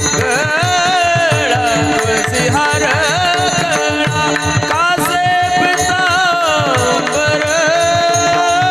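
Devotional kirtan music: a sung melody drawn out on long, sliding, ornamented notes over a steady drone, with quick hand-drum strokes beneath.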